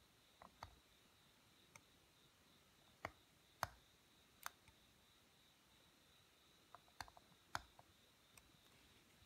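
Seal-carving knife chipping and cutting into the face of a seal, giving sparse sharp clicks and small scrapes at uneven intervals, about a dozen in all.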